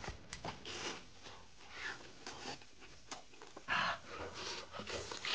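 Close-up eating sounds: biting and chewing a piece of fried, battered rib, with small lip-smacking clicks and a few short, noisy sniffing breaths, the strongest a little under four seconds in.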